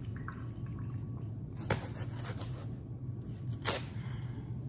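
Kitchen knife slicing through the juicy flesh of a ripe Sugar Baby watermelon with wet squishing sounds, and two sharp knocks about two seconds apart as the blade goes through. A low hum runs underneath.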